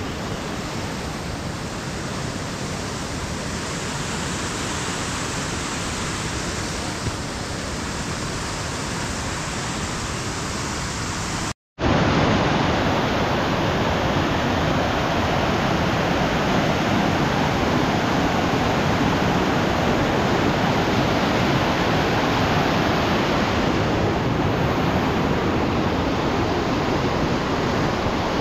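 Steady rushing noise with no distinct events. It cuts out for a split second about twelve seconds in and comes back louder.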